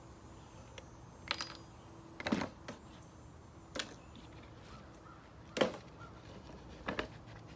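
About five scattered light knocks and clicks, a second or so apart, from handling the jigsaw and the wood while setting up a cut. The saw's motor is not running.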